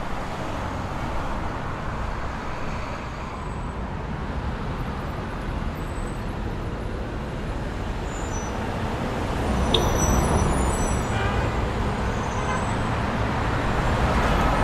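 City street traffic ambience: a steady wash of road noise that grows a little louder about ten seconds in, with a brief sharp click about then.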